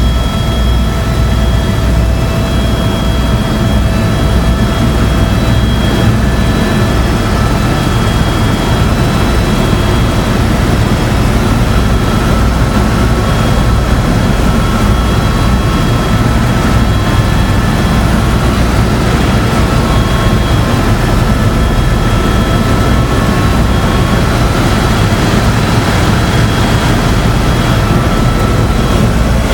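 Helicopter engine and rotors heard from inside the cabin in flight: a loud, steady low rumble with thin, steady whining tones above it.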